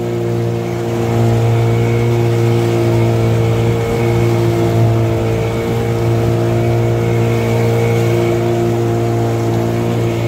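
Motorboat engine running under way at a steady pitch, with an even, unchanging hum.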